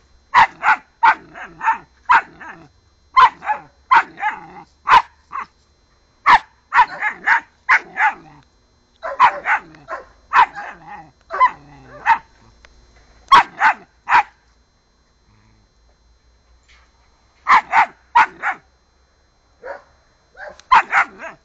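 German Shepherd puppy barking in quick volleys of short, high barks. The barking stops for a few seconds past the middle, then starts again near the end.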